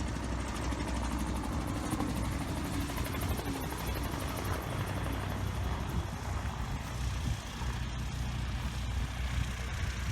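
Aircraft engine running with a steady, even rumble.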